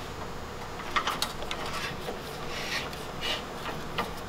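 Steel clamp being fitted against a truck's frame horn and screwed down to press a tab flat: a few sharp metallic clicks about a second in and one near the end, with scraping and rubbing of the clamp in between.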